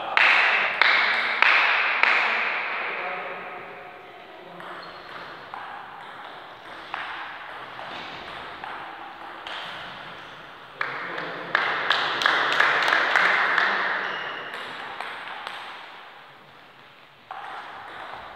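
Table tennis rallies: the ball clicking off the paddles and the table in quick alternation, each hit echoing in a large hall. The hits come thickest in the first few seconds and again from about 11 to 14 seconds in, with a new rally starting near the end.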